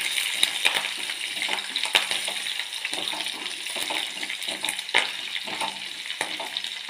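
Garlic, green chillies and dried red chillies sizzling and crackling in hot oil in a pot while being stirred, a steady hiss with many small pops.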